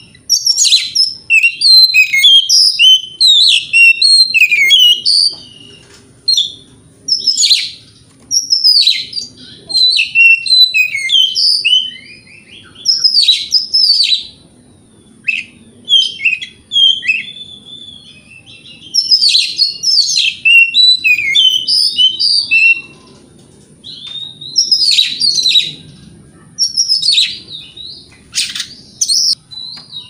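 Oriental magpie-robin (kacer) singing: rapid, varied whistles and chirps in about a dozen loud bursts, each broken off by a short pause.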